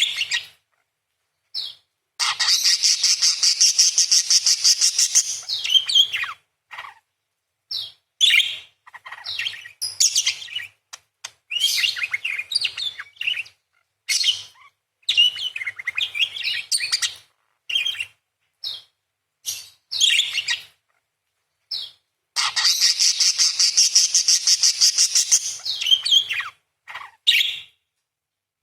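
Parakeet singing: two long, rapid, harsh chattering trills of about four seconds each, one a couple of seconds in and one near the end, with short chirps and quick warbled phrases between them. The long chatter is the 'crecet' or 'beset' phrase that bird keepers play to train songbirds.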